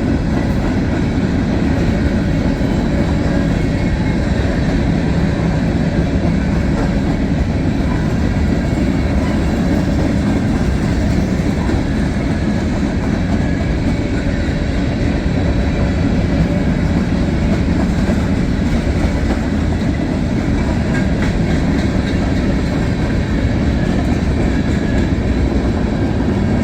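Loaded and empty freight cars of a long mixed freight train rolling steadily past, steel wheels running over the rails with a continuous rumble and some clickety-clack.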